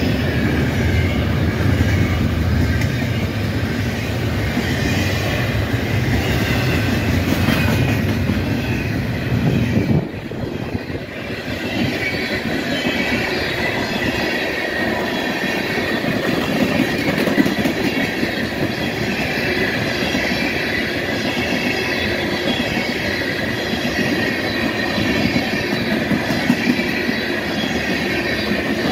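Freight cars rolling past: a steady rumble and clatter of steel wheels on rail, with a thin high wheel squeal. About ten seconds in the sound drops abruptly and goes on as a string of tank cars rolls by.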